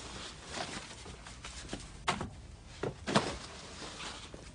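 Scattered light knocks and handling sounds of things being moved about, with three sharper knocks a little past the middle.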